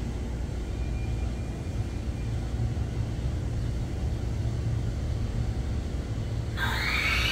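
Steady low rumble of a railway trackside and its city surroundings. Near the end a high tone starts suddenly, rising and then falling in pitch.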